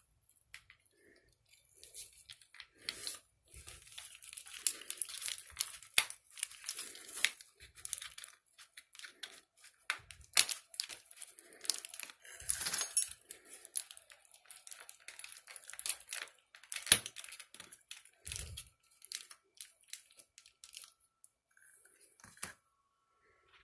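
Hands working on a plastic BBQ lighter: irregular sharp clicks, scraping and crinkling rustle, with a dull thump about three-quarters of the way through.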